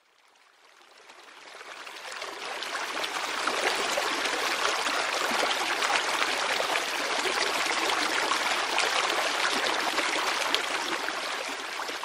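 Running water, like a stream, as a steady rushing and trickling. It fades in from silence over the first three seconds, then holds steady.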